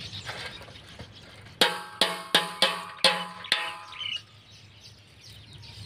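Boiled eggs knocked against a stainless steel bowl to crack their shells for peeling: about six quick ringing knocks, roughly three a second, starting a little under two seconds in.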